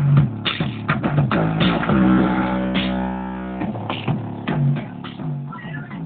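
Rock music with guitar, bass and drums playing through a Volkswagen Gol's car stereo, growing quieter over the last few seconds.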